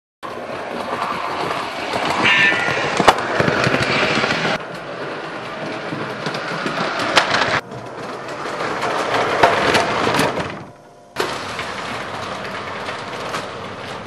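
O-gauge electric toy trains running on three-rail track: a steady rolling clatter of wheels and motors with sharp clicks over rail joints. The sound cuts off abruptly and starts again a few times.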